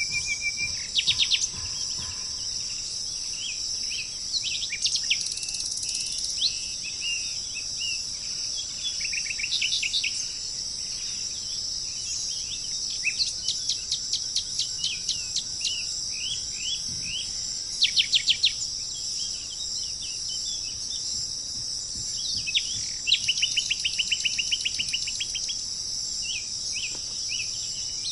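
Birds calling in short bursts and fast trills of rapidly repeated notes, over a steady, high-pitched insect drone.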